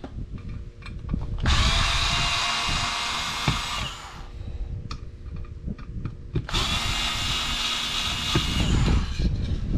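Small power screwdriver running in two spells of about two and a half seconds each, backing out the tiny screws that hold the back plate of a license plate frame. Small clicks of handling come between the runs.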